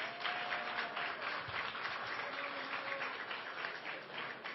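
A roomful of people applauding, a dense patter of many hands clapping at a steady level.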